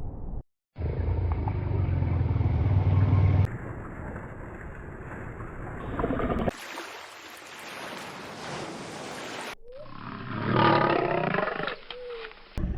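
Calls of wild animals in several short clips, joined by abrupt cuts. A deep, roar-like call is loudest in the first few seconds, and a wavering pitched call comes near the end.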